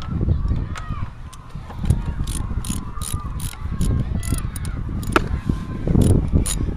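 Socket ratchet wrench clicking as it is swung back and forth to loosen a fastener on a go-kart's rear axle, about three clicks a second from about two seconds in. Wind rumbles on the microphone underneath.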